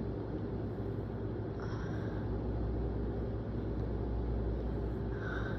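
Steady low background hum with two faint breaths, about two seconds in and near the end, as a person builds up to a sneeze.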